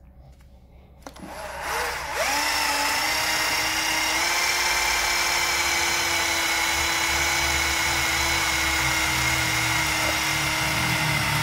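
Cordless drill driving a Phillips self-drilling screw into a metal electric-fence post bracket. The motor spins up about a second and a half in, then runs steadily, its pitch stepping slightly higher about four seconds in.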